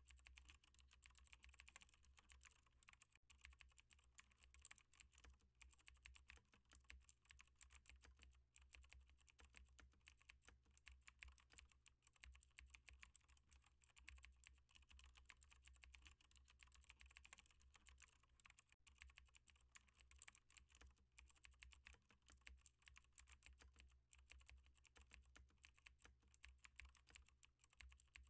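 Faint, continuous typing on a computer keyboard: a dense, unbroken stream of key clicks.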